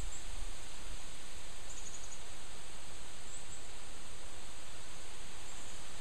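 Wind rustling through the leaves of trees, a steady hiss. A few faint high bird chirps come through it, one a quick trill about two seconds in.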